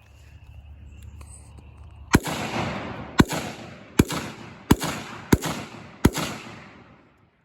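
Six gunshots from a firearm fired in a string, about one a second and slightly quickening, each trailing off in a short echo.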